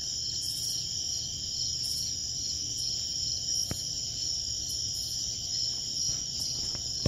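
Steady chorus of night insects trilling, with one faint click a little past halfway.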